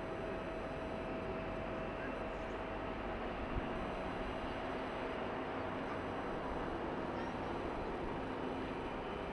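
Distant Airbus A380's four Rolls-Royce Trent 900 jet engines running at low power before the takeoff roll: a steady whooshing noise with a faint whine that fades out about halfway through. A single low bump comes about three and a half seconds in.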